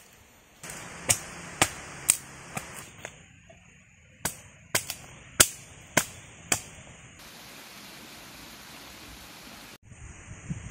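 Machete chopping at wood, a dozen or so sharp knocks at uneven intervals, then a steady hiss for a couple of seconds that cuts off suddenly.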